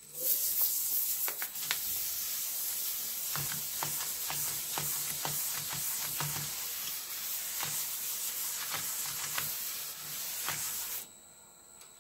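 P600 sandpaper hissing against a dyed monkey puzzle wood vase spinning on a lathe, with light ticks throughout. It stops about a second before the end as the paper is lifted off.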